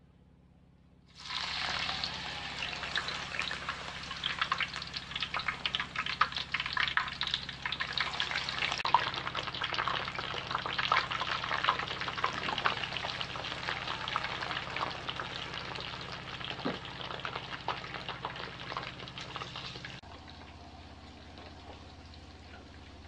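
Thin slices of raw cassava sizzling and crackling in hot oil in a large aluminium wok as handfuls are dropped in for frying into chips. The sizzle starts suddenly about a second in and turns quieter near the end.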